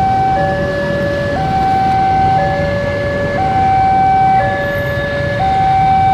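Two-tone hi-lo siren, switching steadily between a higher and a lower note about once a second, over a steady low rumble.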